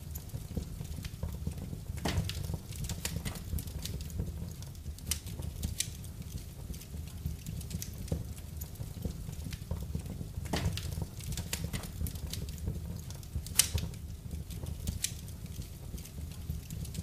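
Wood fire in a fireplace crackling, with irregular sharp pops and snaps over a low steady rumble. One louder pop comes a little past three-quarters of the way through.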